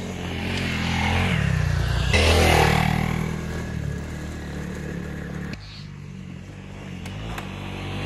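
Motorcycle engine running while riding, the revs and loudness building over the first two to three seconds and easing after. There is a sudden drop about five and a half seconds in, and the engine then builds up again.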